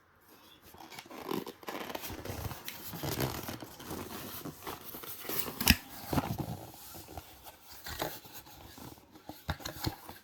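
Packaging being handled and torn open: rustling and tearing with scattered sharp clicks, the loudest about halfway through.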